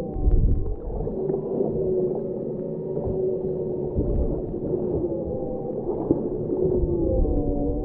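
Underwater sound picked up by a camera on a deep-drop fishing rig: muffled water noise with low humming tones that waver and slide slowly up and down in pitch.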